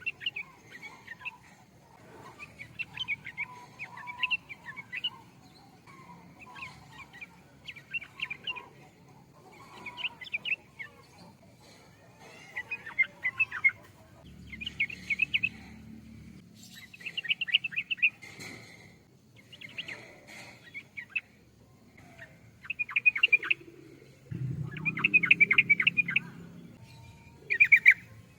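Yellow-vented bulbul (trucukan) singing: short, bubbly chattering phrases repeated about every two seconds. A low rumbling noise rises under the song twice, loudest near the end.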